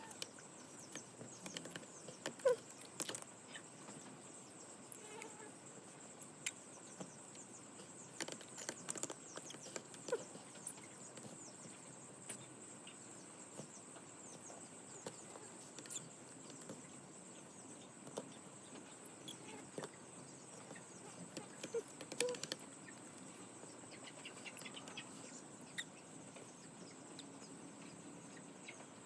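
Faint outdoor ambience: a steady high-pitched insect drone, with scattered light clicks and rustles.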